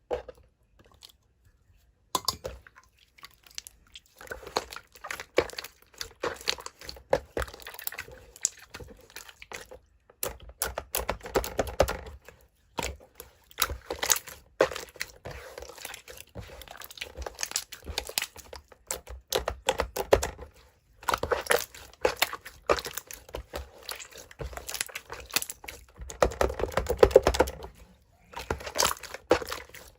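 Slime being squished and poked by hand: irregular bursts of sticky crackling and small popping clicks, with short pauses between them.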